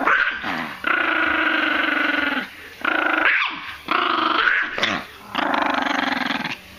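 A tiny 3-pound Maltipoo growling in long, steady stretches with a few short breaks between them: a warning growl as she guards her box of ammunition from a reaching hand.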